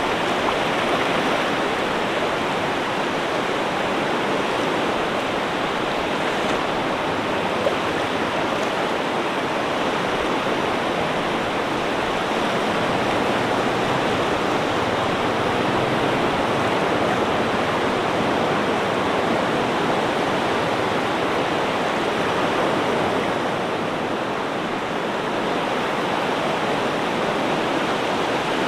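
Ocean surf rushing in a continuous, even wash of water noise, with very little rise and fall.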